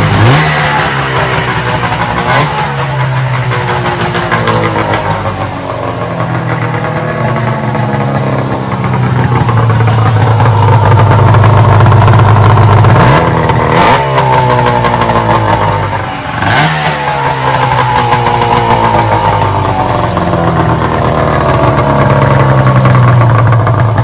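A freshly repaired snowmobile engine running loud with the hood open, its throttle blipped by hand at the carburettors several times, giving quick rising revs over a steady idle.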